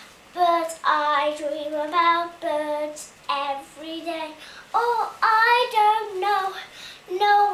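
A young girl singing unaccompanied: a string of short held notes, one after another, with no instrument behind her.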